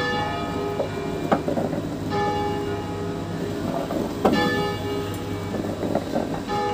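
Church bells from a set of five tuned in E-flat, rung by hand. A new bell stroke comes about every two seconds, each one ringing on under the next, with a couple of sharp knocks and a steady low rumble beneath.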